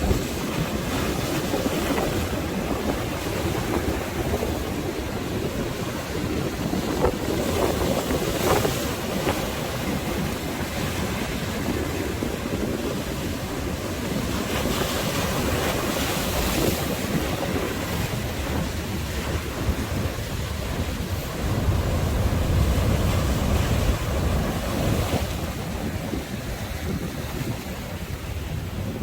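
Sea waves washing and breaking on the shore, with wind buffeting the microphone. A stronger gust brings a low rumble for a few seconds about three quarters of the way through.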